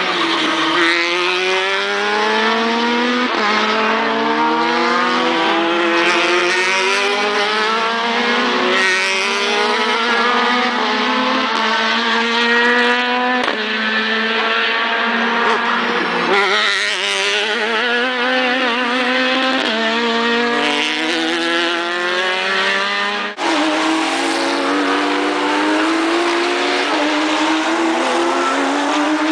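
Race car engines accelerating hard past the track, each note climbing in pitch then dropping back at every upshift, with several cars overlapping. The sound breaks off abruptly about 23 seconds in and picks up again with another car accelerating.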